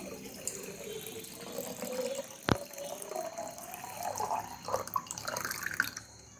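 Water pouring into the water reservoir of a Morphy Richards espresso machine, the pitch of the filling rising steadily as the reservoir fills up. A single sharp click about two and a half seconds in.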